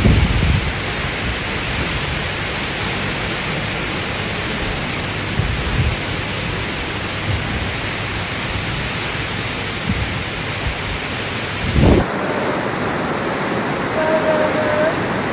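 Tropical-storm rain and gusting wind, a dense steady roar with occasional low thumps of wind buffeting the microphone. About twelve seconds in it cuts abruptly to another recording of steadier, duller storm noise.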